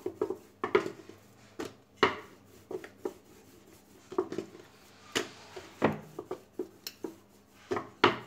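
Wooden rolling pin rolling out a ball of dough on a board, with irregular short knocks and clatters as the pin is pushed back and forth and lifted and set down.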